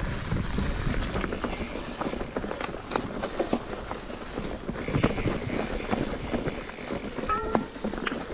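Mountain bike rolling over rough ground: tyres crunching and the bike rattling and knocking irregularly, with a brief high squeak near the end.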